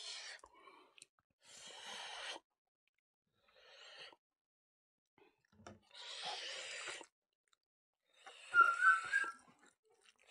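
A man breathing noisily in and out while eating, about five breaths a second or two apart. The loudest one, near the end, carries a short whistling wheeze.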